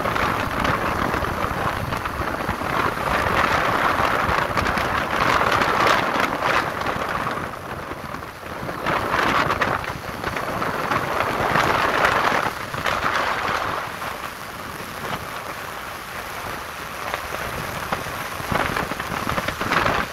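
Wind rushing over the microphone of a moving motorcycle, with road noise beneath: a continuous noisy rush that swells and eases every few seconds and drops lower for a few seconds past the middle.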